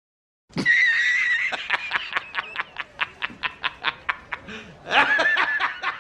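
A high-pitched laugh used as a meme sound effect. It opens with a held squeal, breaks into a rapid cackle at about five laughs a second, and ends with another squeal.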